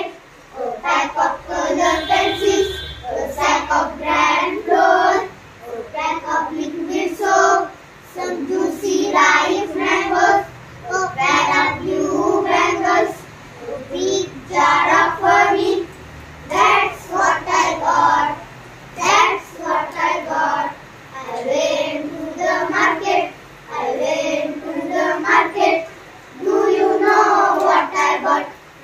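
A group of children singing an English rhyme together, unaccompanied, in short phrases of two to three seconds with brief breaks between them.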